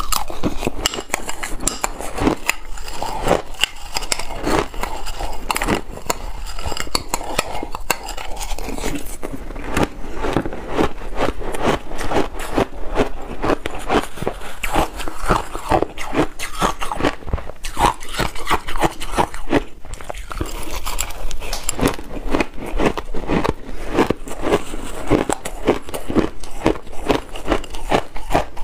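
Shaved ice being crunched and chewed, with a spoon scraping and scooping through the ice in a glass bowl: many quick crisp crunches and crackles in a row, without a pause.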